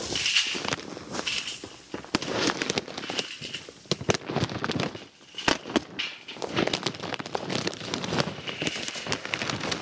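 Heavy plastic-wrapped sacks of horse bedding litter being handled and stacked: the plastic crinkles and crackles irregularly, with occasional knocks.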